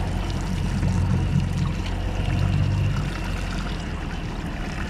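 Suzuki outboard engine idling as a low hum, with water sloshing and trickling at the stern; the engine hum drops away about three seconds in.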